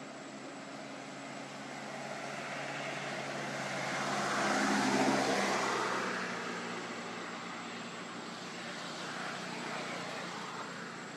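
An engine-driven vehicle passing by, growing louder to a peak about five seconds in and then fading.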